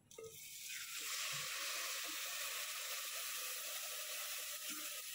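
Milk pouring in a steady stream through a mesh strainer into an aluminium pot of fried vermicelli: a steady hiss that starts at once and swells over the first second.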